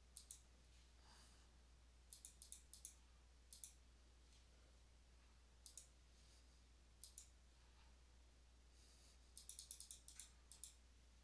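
Faint computer clicks, single and in pairs or small groups every second or two, with a quick run of about eight clicks near the end, over a steady low hum.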